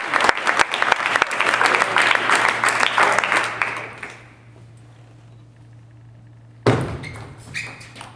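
Spectators applauding, dying away after about four seconds. A quiet stretch with a low hum follows, then a sharp thump and the first pings of a table tennis ball on bat and table as a rally starts near the end.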